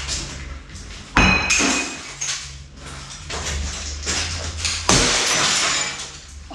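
Objects being smashed in a rage room: two hard crashes, about a second in and near five seconds, the first with a ringing, glassy shatter, and smaller knocks and clinks between them.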